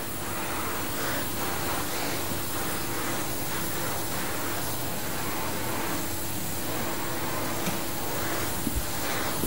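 A steady, noisy mechanical whir over a faint low hum, swelling and easing about once a second.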